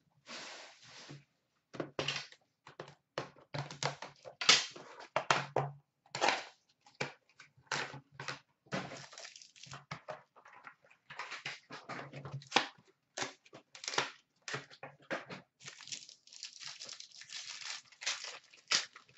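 Packaging of a Panini Prime hockey card box being torn and crinkled open by hand, with cards and inner packs handled: an irregular run of crackles, rips and rustles.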